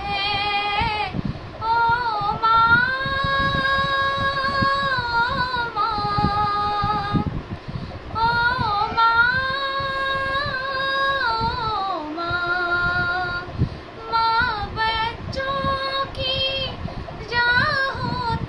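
A young girl singing a song solo, with melismatic phrases and two long held notes.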